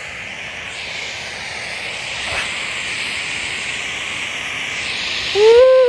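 Steady hiss of packed snow scraping under a person's clothes as they slide down a steep snowy slope on their backside. Near the end a man lets out a long, loud whoop that falls in pitch.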